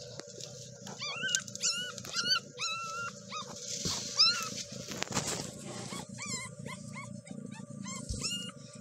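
Newborn kittens mewing: many high, thin cries that rise and fall, coming in quick runs, as a hand handles the kittens.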